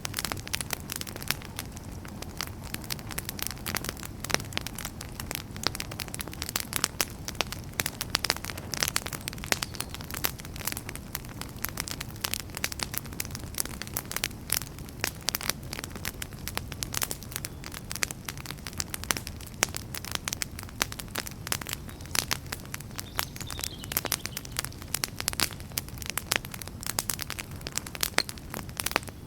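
Wood campfire burning, crackling and popping with many quick irregular snaps over a low steady rumble of the flames.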